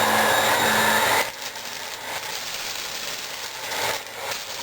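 Hoover Flair vacuum cleaner running in carpet mode with a steady whine, dropping noticeably quieter about a second in. It then runs on with faint ticks as it picks up copper BBs from the carpet.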